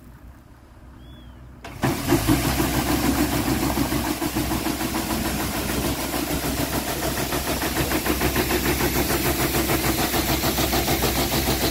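DYFMA pecan tree shaker running and shaking the tree: a loud engine-driven rattle with a fast, even pulse that starts abruptly about two seconds in and stops near the end.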